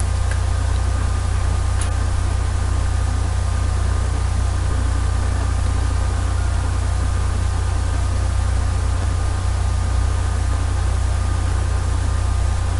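Steady low hum with an even hiss: the background noise of the recording setup, with no speech over it. One faint click comes about two seconds in.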